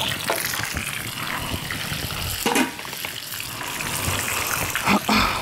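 Whole fish frying in a pan of hot oil, a steady sizzle and bubbling. Two brief louder noises cut in, about halfway through and near the end.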